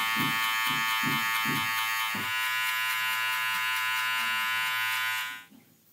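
Cordless electric hair clipper buzzing steadily as it cuts short hair on the sides and nape, with soft pulses about three times a second over the first two seconds. It switches off abruptly near the end.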